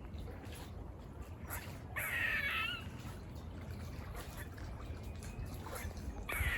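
Harsh, drawn-out animal calls, two of them about four seconds apart, each lasting under a second.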